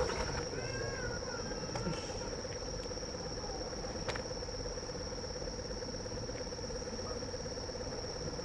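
Insects, crickets by their sound, trilling steadily in one unbroken high note over a lower, finely pulsing drone. A few short squeaky chirps come in the first second and a half, and there is a single click about four seconds in.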